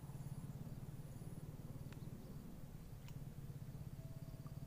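Quiet outdoor background: a low, steady, fluttering rumble with faint thin high-pitched tones above it and two or three faint ticks.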